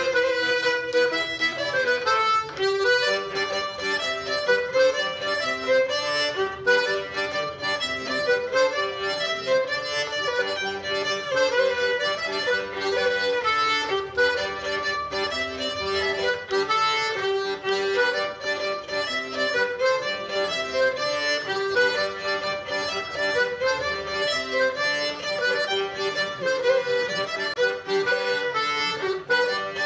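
Instrumental folk dance tune played on fiddle and accordion, a quick run of short notes at a steady dance pace.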